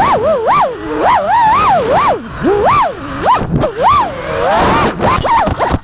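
FPV quadcopter's brushless motors and propellers whining, the pitch swooping up and down every half second or so with rapid throttle changes.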